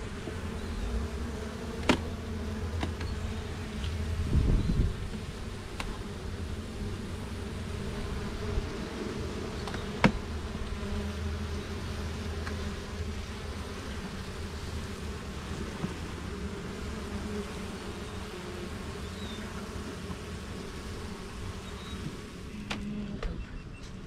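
Honeybees buzzing in a steady hum around an opened hive, with a brief low rumble about four seconds in and two sharp clicks, at about two and ten seconds.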